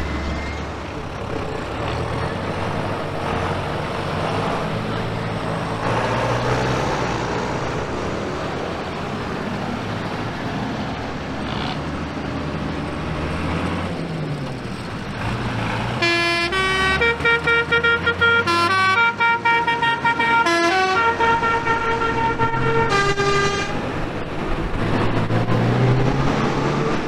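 Diesel tractor engines running as tractors drive past one after another, their pitch rising and falling. About sixteen seconds in, a musical horn plays a quick tune of stepped notes for about eight seconds, and this is the loudest sound.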